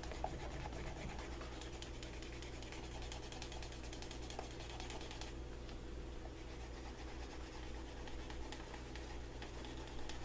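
Handheld burnishing tool rubbed back and forth along a leather holster edge dressed with gum tragacanth: a steady scratchy rubbing as the edge is worked to a shine.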